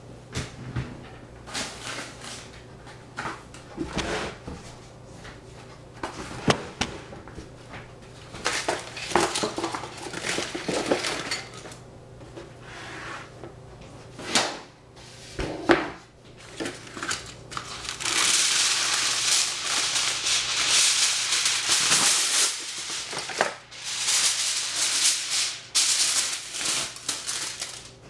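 Kitchen work sounds: dishes and utensils knocking and clinking at irregular moments, then a steady hiss for most of the last ten seconds, broken twice.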